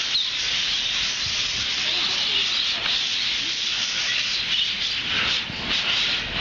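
Many small caged birds chattering at once, a dense high-pitched twittering that blends into a steady hiss.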